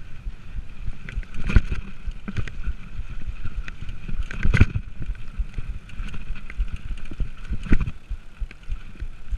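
Mountain bike riding down a dirt forest singletrack: a steady low rumble of tyres on dirt, with sharp clunks and rattles from the bike over bumps, the loudest about four and a half seconds in and again near eight seconds.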